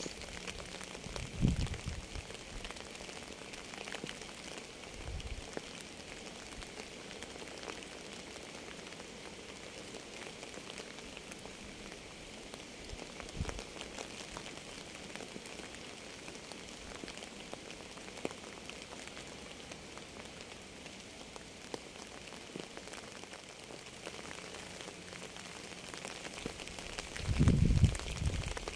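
Steady rain falling on a surface, with a few short low thumps; the loudest of them come near the end.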